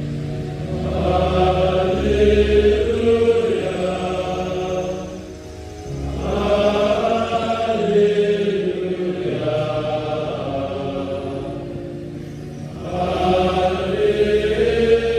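Large all-male congregation of seminarians chanting together from their prayer books in three long sustained phrases, with brief pauses between them.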